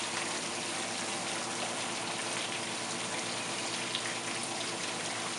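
Steady hiss of water spraying and running over a dog's coat in a stainless steel grooming tub as the shampoo is rinsed off.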